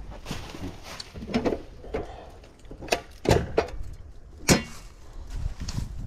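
Scattered sharp clicks and knocks of wires and hand tools being handled at a heat pump's electrical connections, the loudest about four and a half seconds in.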